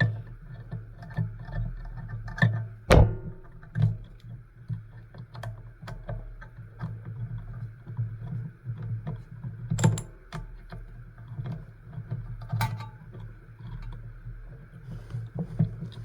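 Scattered clicks and knocks of hand tools and metal parts being handled while part of an old radio chassis is taken apart, with a few louder knocks about 3, 10 and 12 seconds in, over a steady low hum.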